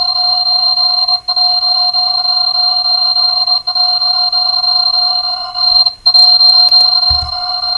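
An alarm sound effect sped up so far that its rings have merged into one steady, shrill chord of several tones. The chord breaks off for an instant three times, with a short low thump near the end.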